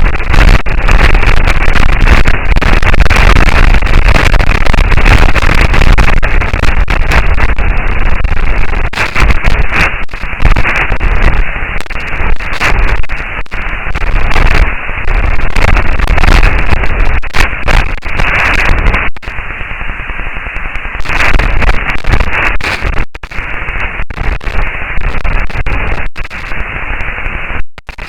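Loud, dense crackling noise with a strong deep rumble, broken by many brief dropouts, presented as audio recorded on Mars.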